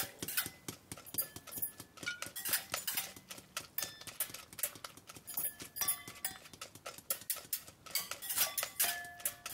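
Kitchen clatter: an irregular run of knocks and clinks from a metal sieve, glass bowls and utensils being handled while baking.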